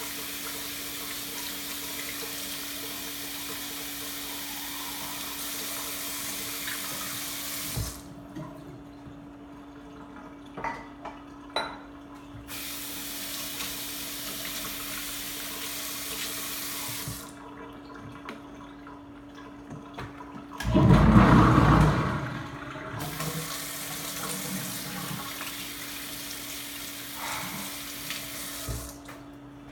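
Kitchen sink faucet running in three spells, turned off in between, as dishes are washed by hand; a few light clinks of dishes in the first pause and one loud burst of noise lasting about a second, about two-thirds of the way through. A steady low hum underneath.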